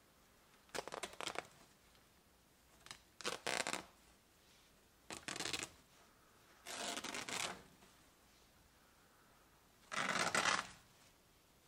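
Aged burlap seat cover on an 1830s Biedermeier chair being torn open by hand: five short rips of coarse fabric, the last the loudest.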